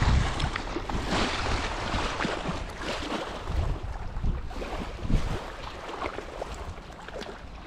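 Wind blowing on the microphone in uneven gusts, with small waves lapping at the water's edge.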